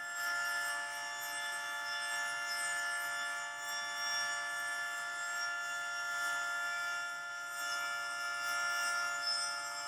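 Federal Signal 3T22 three-tone outdoor warning siren sounding during a test, holding a steady chord of several tones with small swells in loudness.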